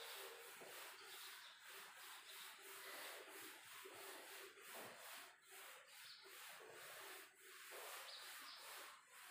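Faint rubbing of a handheld eraser wiped across a whiteboard in repeated strokes.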